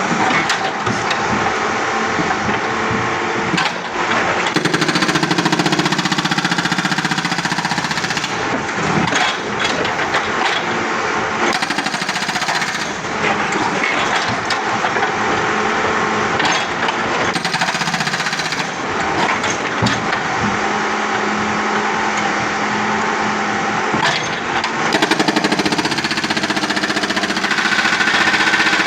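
Hydraulic breaker hammer on a backhoe pounding a 5-inch concrete slab in rapid continuous blows, with the backhoe's engine running underneath.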